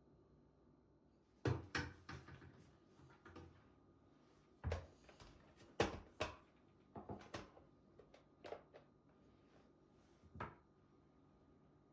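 Irregular knocks and clacks of objects being handled, with the loudest about a second and a half in, near five and six seconds, and one more near the end.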